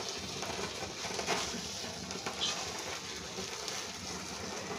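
Havan fire burning in a small fire pit: a faint, steady sizzling hiss with scattered small crackles.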